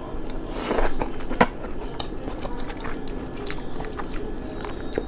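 A person eating a bowl of homemade ramen: biting and chewing, with scattered small clicks and a sharper click about a second and a half in.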